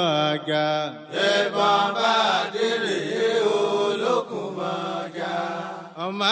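A solo voice chanting a song in Yoruba, holding long notes that waver and glide in pitch, with short pauses between phrases about a second in and near the end.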